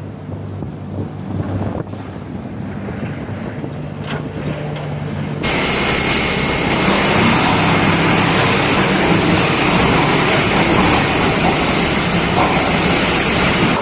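Wood chipper running with a steady low hum, then about five seconds in a much louder, dense grinding noise suddenly takes over and holds steady as material is chipped.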